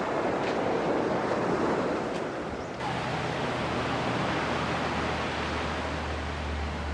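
Sea surf washing on a beach, a steady rush of waves. About three seconds in, the sound changes abruptly and a low steady hum joins the surf.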